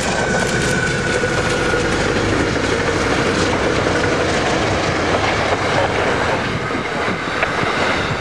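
A train passing close by, its railcars rolling past with a steady rumble and wheels clattering on the rails.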